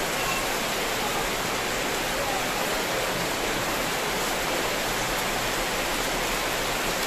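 Heavy monsoon rain pouring down, a steady, even hiss.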